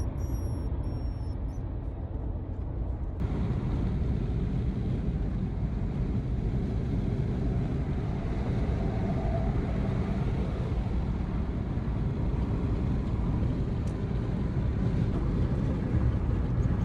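Steady low rumbling noise, strongest in the bass and without speech, that changes and grows louder at a cut about three seconds in. Faint high electronic tones sound briefly near the start.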